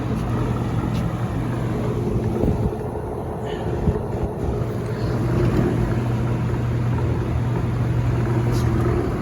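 Vintage Penncrest 100 box fan running: a steady electric motor hum over the rush of air from the blades. The hum weakens briefly about three seconds in, then returns.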